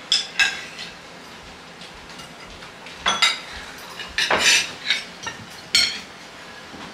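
Fork and spoon clinking and scraping against ceramic plates in several short bursts, the longest cluster about four seconds in.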